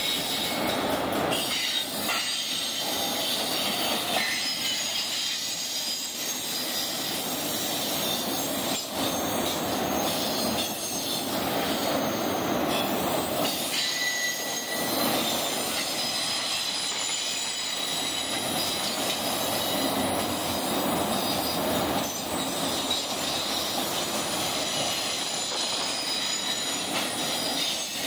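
Enclosed autorack freight cars of a long Norfolk Southern mixed freight rolling past at close range on a climbing grade. The steel wheels squeal in several steady high tones over a continuous rumble, with an occasional wheel clack.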